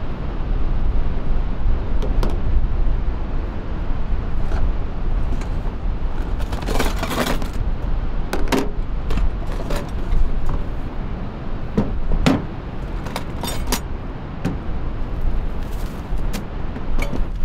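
Steady low vehicle rumble with scattered clicks, knocks and rattles; the biggest cluster of clatter comes about seven seconds in.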